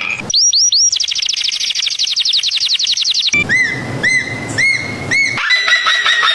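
Bird calls in quick succession: three short falling chirps, then a rapid trill of falling notes for about two seconds, then four evenly spaced arched whistles, then a fast run of falling notes near the end. The abrupt changes between these suggest several different birds spliced one after another.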